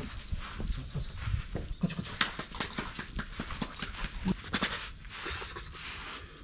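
A one-month-old tiger cub's paws padding and rustling on grass right by the microphone: irregular soft taps and brushing sounds.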